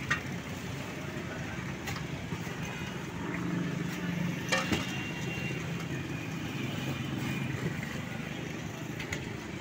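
Busy street noise with a steady low engine hum that swells in the middle, and a few sharp clicks.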